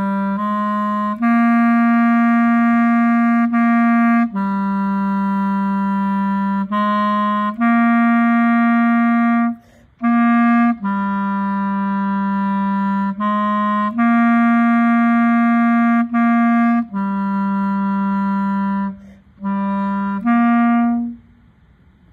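Solo clarinet playing a slow line of held notes in its low register, moving among a few neighbouring pitches, with short breaks for breath about ten seconds in and near the end. The last note stops about a second before the end.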